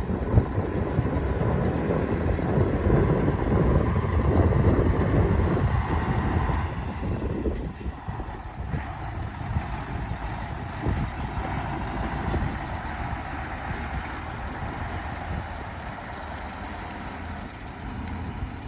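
Excavator's diesel engine running under load, louder for about the first seven seconds, then easing to a lower, steadier level, with a few short knocks.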